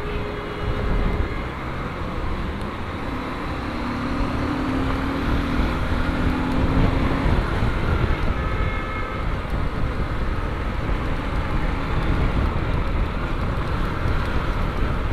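Honda Shine 125 motorcycle riding in city traffic: a steady rumble of engine, road and wind noise, with other vehicles around it.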